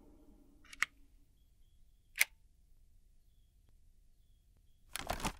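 Sharp plastic clicks: a wall socket is switched off and the plug pulled, two single clicks a little over a second apart, while the fan's hum dies away in the first second. Near the end comes a louder short cluster of clicks as the side release buttons on a Dyson Pure Hot + Cool purifier's filter shroud are pressed.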